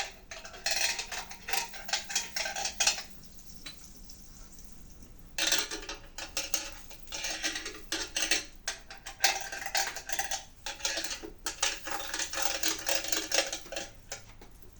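A table knife scraping and clinking against the plates of a waffle maker while spreading butter on them, in irregular repeated strokes. The scraping stops for about two seconds early on, then resumes for most of the rest.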